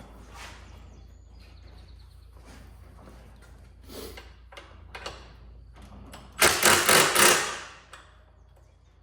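Hand tools working on a stubborn bolt on a motorcycle: scattered light clinks and knocks, then about six and a half seconds in a loud rasping burst of a few quick strokes lasting about a second.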